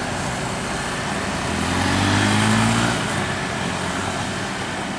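A heavy road vehicle passes close by amid steady traffic noise. Its low engine note rises slightly in pitch and is loudest about two to three seconds in.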